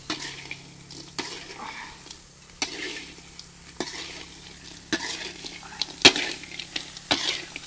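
Crickets stir-frying with chillies and herbs in a steel wok: a steady sizzle, with a metal spatula scraping and knocking against the pan about once a second, loudest about six seconds in.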